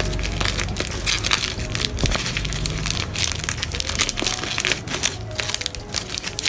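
Plastic packaging crinkling and crackling in irregular bursts as it is handled and opened by hand.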